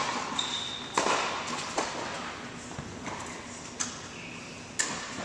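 Tennis rally: the ball is struck by rackets and bounces on the hard court, a series of sharp pops spaced a second or two apart that echo in the large hall. A short high squeak comes about half a second in.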